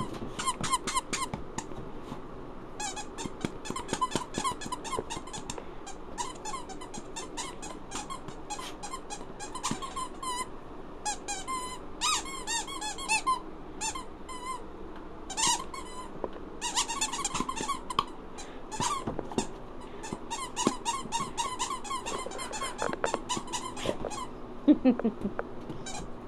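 Dog chewing a squeaky chew toy, squeaking it over and over in quick runs with short pauses.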